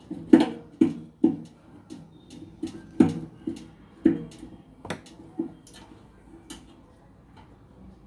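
Hand screwdriver driving a screw into a microwave oven's sheet-metal housing to mount the thermostat: about a dozen irregular sharp clicks and knocks, roughly two a second, thinning out and stopping about six and a half seconds in.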